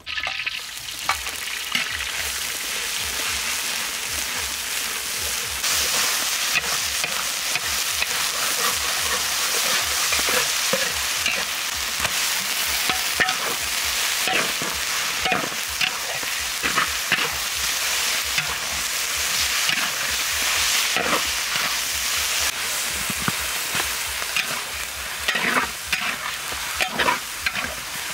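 Meat and yellow spice paste sizzling as they hit hot oil in a large wok, starting suddenly, then frying steadily while a metal spatula scrapes and stirs against the pan.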